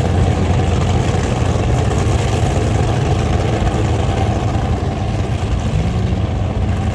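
Large engine idling loudly and steadily, its low-pitched exhaust note running without a break.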